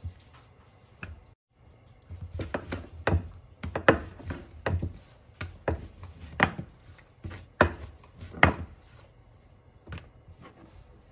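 Rolling pin working dough into flat rounds on a wooden counter: a run of dull knocks with rubbing, about two a second, that eases off after about eight seconds.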